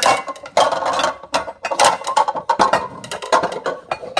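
Rapid, irregular clattering of small hard objects: dense runs of clicks and rattles with brief gaps between them.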